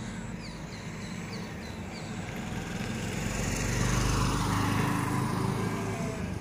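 Motor vehicle engine running steadily, growing louder about three seconds in and fading again as a vehicle passes on the road.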